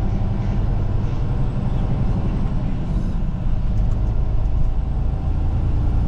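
A truck's engine and road noise as it drives, a steady low drone that holds without a break.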